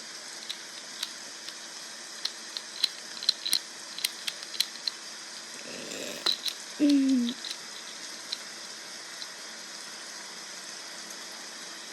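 Scattered light clicks and taps from a handheld fidget toy being played with, over a steady hiss of rain sounds playing from a smart speaker. A short falling tone sounds just before seven seconds in.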